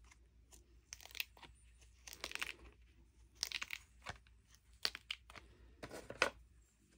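Flexible silicone mold being flexed and peeled away from cured resin castings, crackling and tearing in several short bursts as the resin releases.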